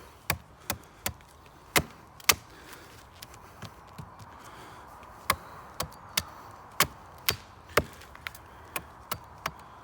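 Small bushcraft axe chopping chips off the end of a stick to carve a point: sharp knocks of the blade biting into wood, about five quick strokes, a pause of some three seconds, then a steady run of strokes about two a second.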